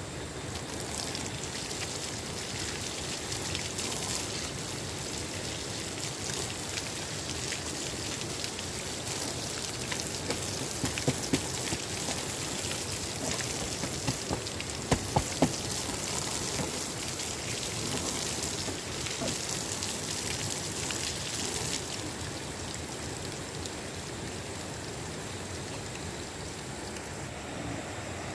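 Steady hiss and patter of falling water that eases off about two-thirds of the way through, with a few sharp knocks near the middle.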